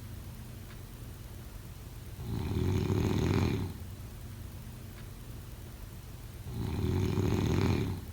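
Snoring: two long, low snores about four seconds apart, a little over a second each, with quieter breathing between them.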